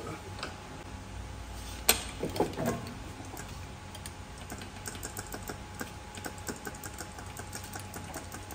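Metal clicking and knocking from hands and tools working on a car's transmission: one sharp knock about two seconds in, a short clatter right after, then a run of light, irregular ticks.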